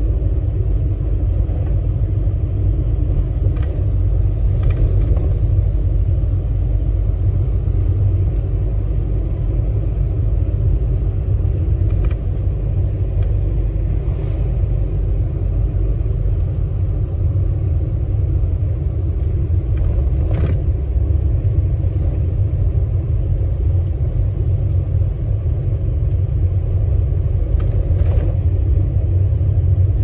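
Route bus running along the road, heard from inside the cabin: a steady low engine and road rumble, with a few faint clicks or rattles now and then.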